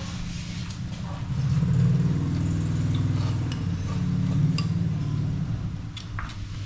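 An engine hums steadily, growing louder about a second and a half in and easing off near the end, with light clinks of dishes and chopsticks.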